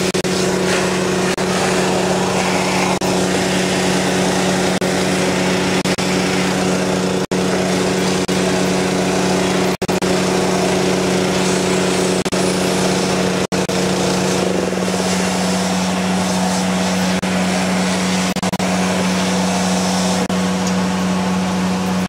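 Engine-driven vacuum unit of an oil-spill recovery system running steadily: a steady hum under a broad rushing noise. The sound cuts out very briefly three times, and the upper part of the hum changes about two-thirds of the way through.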